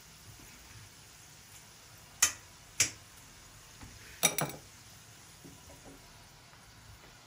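Garlic slices frying in a pan of oil, a faint steady sizzle. A few sharp clicks cut through it: two a little over two seconds in, about half a second apart, and a quick double about four seconds in.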